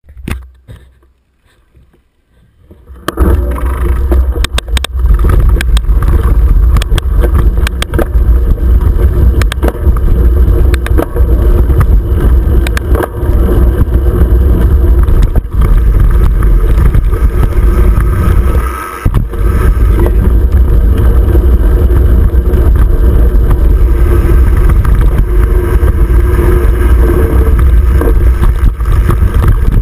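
Mountain bike rolling fast down a dirt and gravel trail, heard from a camera mounted on the bike: a loud low rumble of wind buffeting the microphone and tyres on the dirt, with many clicks and rattles from the bike jolting over bumps. It starts about three seconds in, after a quiet start, and dips briefly about two-thirds of the way through.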